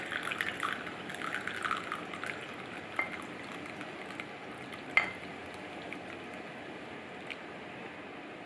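Milk tea poured in a stream from an enamel milk pan into a ceramic cup, a steady liquid splash that is strongest in the first couple of seconds. Two sharp clinks cut through it about three and five seconds in, the second the loudest sound.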